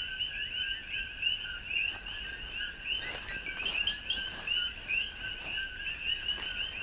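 Dense night chorus of many frogs calling at once, a steady mass of short overlapping chirps at two pitches, one higher than the other.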